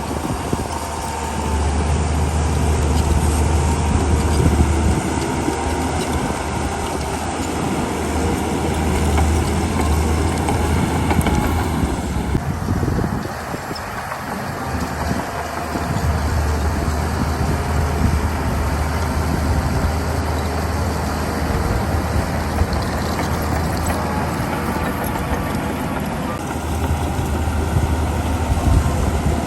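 Heavy diesel earthmoving machinery running and working, with a deep, steady engine hum under a rumble of mechanical noise. The engine sound eases off for a few seconds midway, then comes back.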